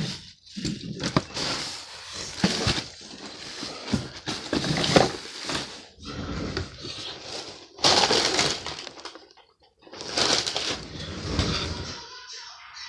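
Plastic toy packaging being handled, crinkling and crackling in irregular bursts with sharp clicks in between.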